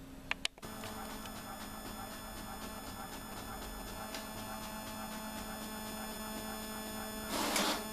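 Two quick clicks, then an inkjet printer printing a page: a steady mechanical whine with a faint regular pattern, and a short louder rush of noise near the end.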